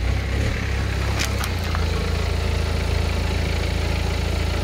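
BMW car engine running at low revs as the car creeps slowly forward, with a couple of brief clicks about a second in.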